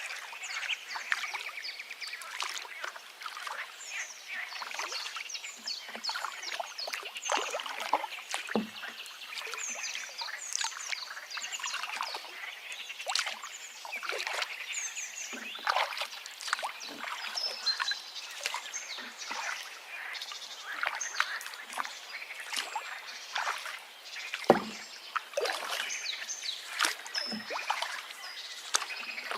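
Forest river babbling and splashing, with many small birds chirping and trilling over it throughout. A few deeper water plops stand out, one about eight seconds in and two near the end.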